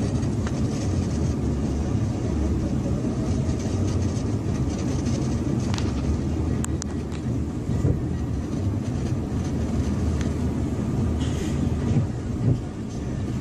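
A semi-truck's diesel engine drones steadily under the rushing and splashing of water and slush as the truck ploughs through a flooded road. A few sharp ticks come about halfway through, as spray spatters the windshield.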